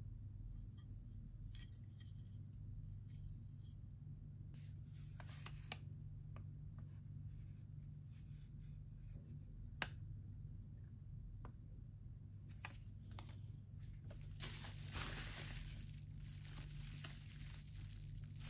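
Gift packaging handled by hand: scattered soft paper rustles and a few light clicks as a folded instruction sheet is handled, then from about two-thirds of the way in a longer, louder crinkling of bubble wrap around a mug. A low steady hum lies underneath.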